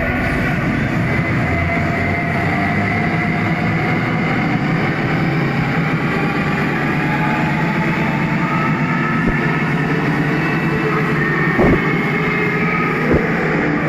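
Loud live electronic dance music from a DJ set, heard in the hall as a dense, distorted wash with a few held tones. Two short thumps come near the end.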